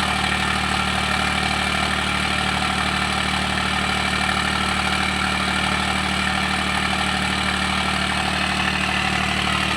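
Heavy diesel engine idling steadily, an even low engine note that does not change.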